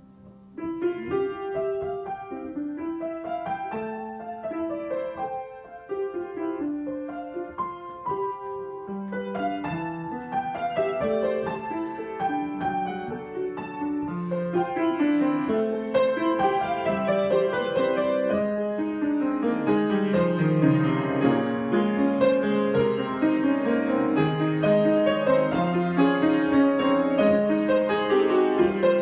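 Solo piano improvisation: a quiet held chord, then notes come in about a second in, and the playing grows busier and louder from about nine seconds on.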